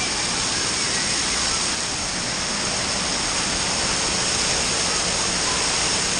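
Steady rush of falling, splashing water, unbroken and even throughout.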